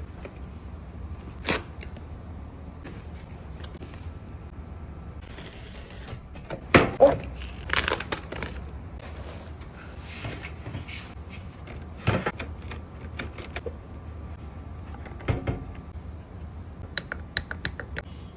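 Handling noises: scattered knocks, clicks and scrapes from objects being moved about, with a quick run of small clicks near the end.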